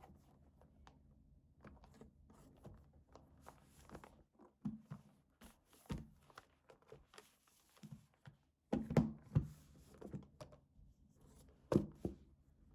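Hands handling packaging: paper and wrapping rustling, with small clicks and soft thunks as items are moved and set down. The loudest handling comes about nine seconds in and again near the end.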